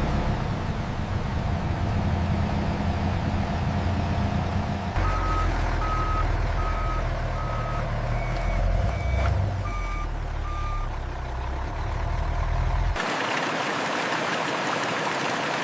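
Heavy diesel vehicle engine running, joined about a third of the way in by a reversing alarm beeping in short, evenly spaced beeps that step between a lower and a higher pitch. Near the end the sound cuts abruptly to a steady rushing noise.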